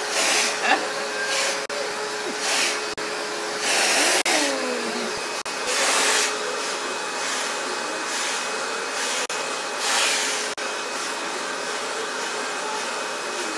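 Vacuum cleaner running with its hose nozzle drawn over a cat's fur: a steady rushing hiss with a constant hum, swelling louder in brief surges several times.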